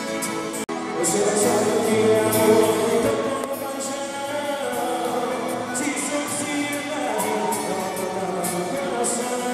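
Live acoustic guitar strumming and accordion playing a forró-style song, with a man singing into a microphone. The sound drops out for an instant early in the song.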